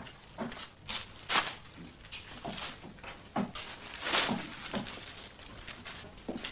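A shopping bag rustling and crinkling as it is handled, in a string of short irregular crackles.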